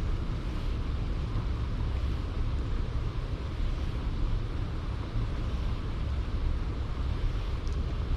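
Steady low rumble of wind buffeting the microphone outdoors, with a faint hiss above it.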